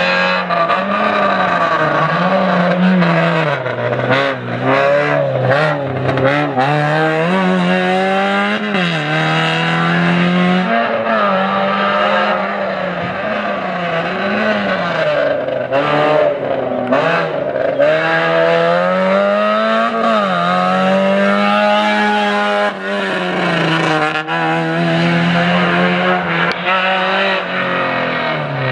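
Small four-cylinder slalom race cars, first an Opel Corsa B, then a Peugeot 205, revving hard and dropping off again and again as they weave through cone gates. The engine pitch climbs and falls every second or two, with gear changes.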